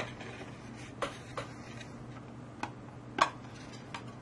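Light clicks and knocks from handling a clear plastic project enclosure on a wooden base as it is turned around in the hands, about six irregular taps with the loudest a little after three seconds, over a steady low hum.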